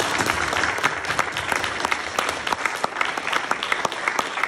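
Audience applauding: many people clapping together in a dense, steady patter of hand claps.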